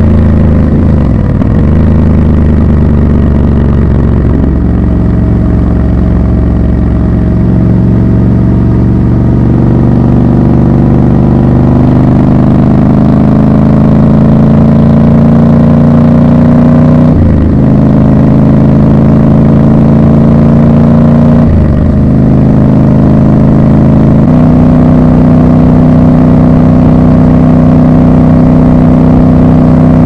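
Triumph Scrambler 1200 XC's 1200 cc parallel-twin engine pulling along at road speed, heard from the rider's seat. The engine note climbs slowly, breaks briefly twice about two-thirds of the way through as gears change, then holds a steady cruise near the end.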